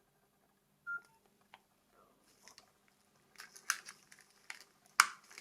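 A short electronic beep from the Nokia 2760 flip phone about a second in, then a run of sharp plastic clicks and taps as the phone is handled. The clicks grow denser and louder over the last two seconds.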